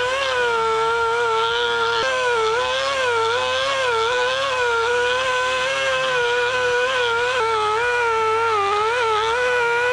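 Die grinder spinning a tapered abrasive sanding roll on a long mandrel, grinding and smoothing the ports of an aluminum small-block Chevy cylinder head. It gives a steady high whine that wavers slightly in pitch.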